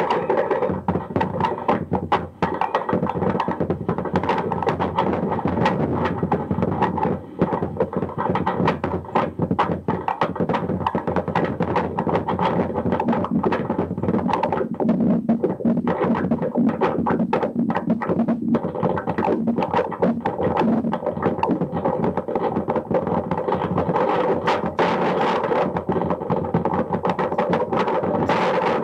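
Lo-fi experimental noise music: a loud, dense wall of noise thick with rapid clicks and knocks, with brief dropouts about two and seven seconds in.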